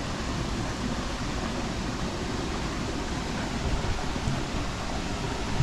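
Steady rushing noise with an unsteady low rumble underneath.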